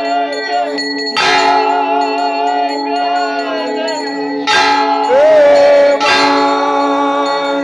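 Temple aarti bells ringing continuously, with three loud strikes: about a second in, about four and a half seconds in, and at six seconds.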